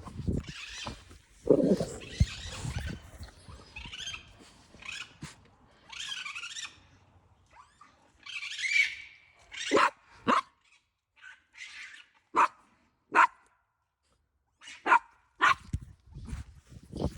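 Harsh screeching and growling calls from animals up in a tree, which the recordist takes for raccoons. Rough, hissy squalls come first, then a run of short sharp calls from about ten seconds in.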